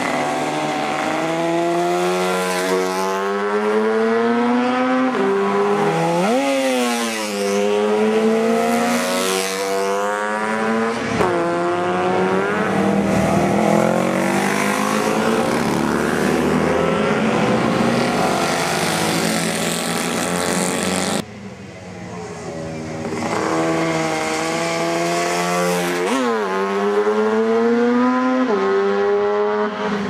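Classic racing motorcycles revving hard through a bend, engine pitch climbing and then dropping sharply several times. The sound drops out abruptly about two-thirds of the way through, then another bike is heard approaching.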